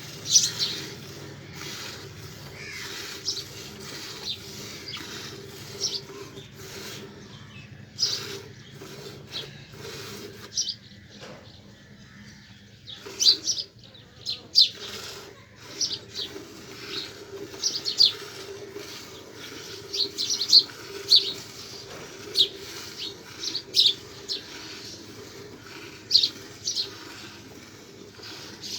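Dairy buffalo being milked: milk spurting into a pail in short hissing squirts, irregular and bunched in places, over a faint steady low hum.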